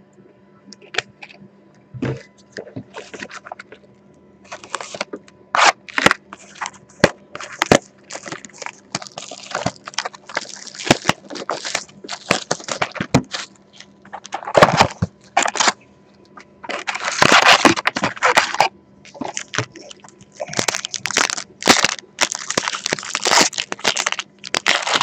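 Packaging of a box of hockey trading cards being ripped open and handled: irregular crinkling, crackling and tearing of plastic wrap and cardboard, in short snaps at first and longer dense spells of ripping in the second half.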